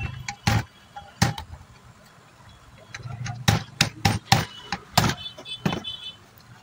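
Hammer blows on a metal rod and the cast end cover of a cooler fan motor, knocking the end cover loose from the housing. There are three sharp metallic strikes in the first second and a half, then a quick run of about eight strikes from about halfway through.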